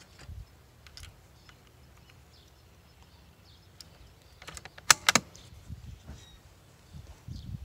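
Bolt of a Savage Mark II .22 rimfire rifle being worked to chamber a single round: a faint click about a second in, then a quick run of metallic clicks ending in two sharp clacks about five seconds in as the bolt is closed and locked.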